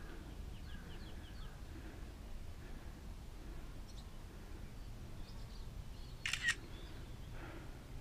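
Quiet trail ambience with a steady low rumble, a small bird chirping faintly several times about a second in, and one short sharp rustle or scrape about six seconds in.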